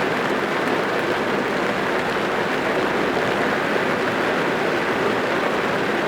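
Steady heavy rain drumming on the roof and windows of a parked car, heard from inside the cabin as a dense, even patter.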